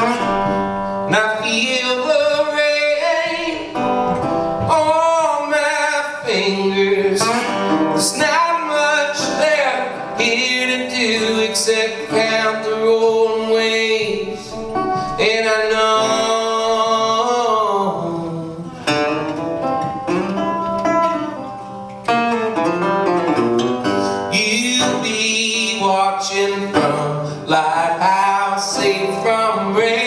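A man singing with his own accompaniment on a metal-body resonator guitar, plucked strings ringing under the vocal line.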